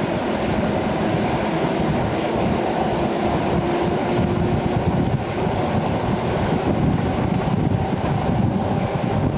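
Steady running noise of an EN57 electric multiple unit in motion, heard from inside the carriage: wheels on the rails and the car body rumbling.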